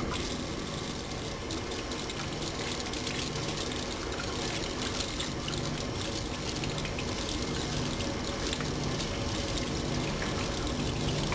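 Water running steadily from a kitchen tap into a stainless steel sink, splashing as hands are rinsed of paint under the stream.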